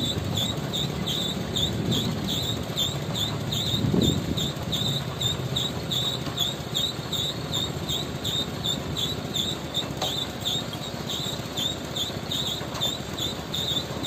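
MAN CLA 26.280 concrete mixer truck's diesel engine running while its drum turns, discharging concrete, as a steady low rumble that swells briefly about four seconds in. Over it runs a regular high chirping, about three a second.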